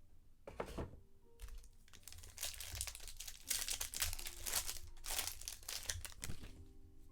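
Trading card pack wrapper crinkling and tearing as a pack of baseball cards is ripped open and handled, in an irregular run of crackles that is densest in the middle.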